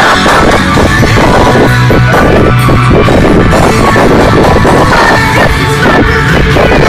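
Live rock band playing loud music, recorded so hot that it is distorted and clipped throughout.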